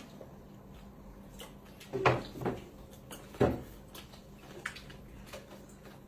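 People eating fruit at a table, with quiet chewing and fruit-handling sounds. Three short, louder sounds come about two, two and a half and three and a half seconds in.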